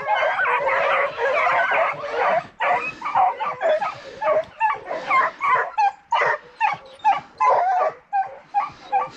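A pack of hunting hounds yelping and baying, many voices overlapping at first, then thinning after about two and a half seconds to separate short yelps, about two a second.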